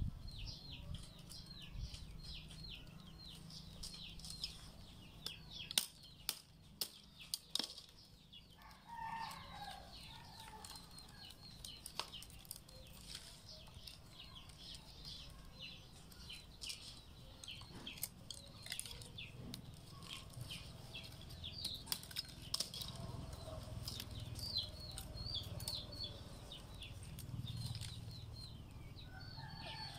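Rattan strands clicking and rustling as they are woven by hand into a basket, with a few sharp clicks about six to eight seconds in. Birds chirp rapidly throughout, and a chicken clucks now and then.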